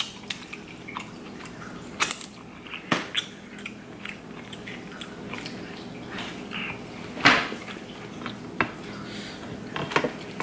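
Close-up eating of snow crab legs: wet chewing and mouth noises, with scattered sharp cracks and clicks of crab shell being handled and pulled apart, the loudest about seven seconds in.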